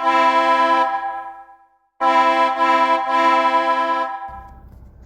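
Short intro music: two held electronic chords, each fading away, the second starting after a moment of silence. A low, steady background hum comes in near the end.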